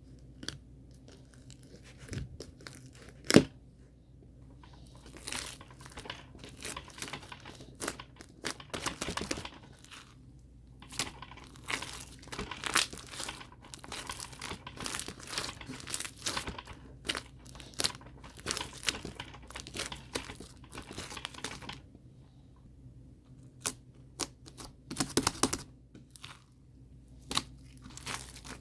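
Irregular crinkling and tearing sounds, as of material being handled, crumpled and torn, with a sharp click about three seconds in.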